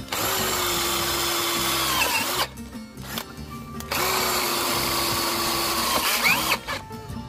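Dekton D21 cordless drill driving self-drilling roofing screws into a flat steel bar: two runs of about two and a half seconds each, the motor's pitch dropping at the end of each run as it slows under load.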